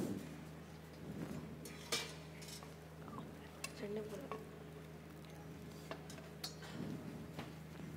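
Serving spoons and plates clinking against stainless steel chafing dishes at a buffet, a handful of scattered clinks over a steady low hum.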